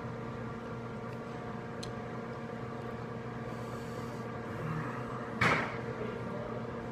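Steady room hum with a few faint ticks, and one short knock or clatter about five and a half seconds in.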